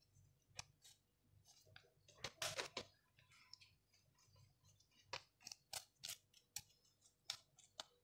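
Thin warqa pastry sheets crinkling faintly as they are handled and smoothed by hand: scattered sharp crackles, with a cluster about two and a half seconds in and several more over the last three seconds.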